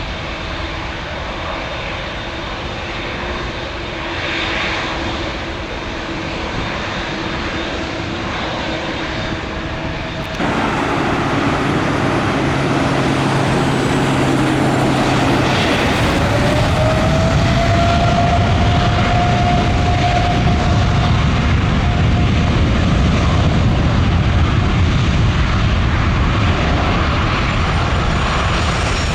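Boeing 787-9 jet airliner approaching to land and passing close, its jet engine noise steady at first, then stepping up abruptly about a third of the way in. A loud, low rumble follows with an engine whine that rises in pitch.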